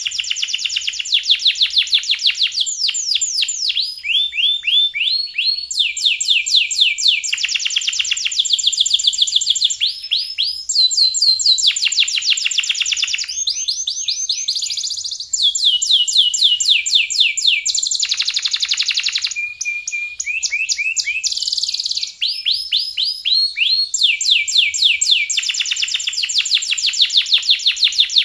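Domestic canary singing a long, unbroken song of rapid trills, high-pitched and switching from one rolling trill to the next every second or two.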